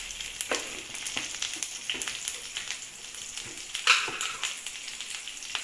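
Curry leaves and cumin seeds sizzling and crackling in hot oil, with one louder pop a little before four seconds in.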